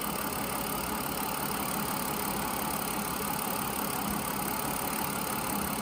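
Mazda MPV's 3.0-litre V6 idling steadily, heard from the open engine bay. The engine is being diagnosed for an intermittent cylinder misfire.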